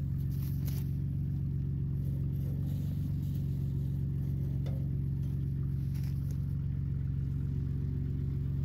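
An engine idling steadily: an even, unchanging low hum.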